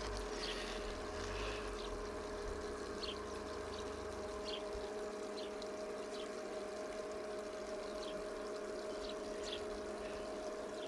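Small fountain splashing and trickling, over a steady two-tone hum, with a few faint scattered ticks.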